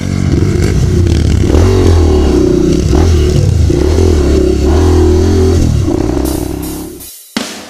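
Outro music with a prominent stepping bass line, fading out near the end.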